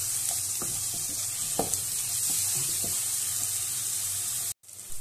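Chopped onions and tomatoes sizzling in hot oil in a metal pan while a wooden spatula stirs them, with a few knocks and scrapes of the spatula against the pan; the tomatoes are being sautéed until they mash down. The sound cuts out briefly near the end.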